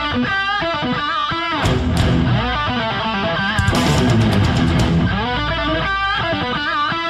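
Rock intro music led by electric guitar, with bass underneath; the lead guitar line bends and wavers in pitch over a steady, loud backing.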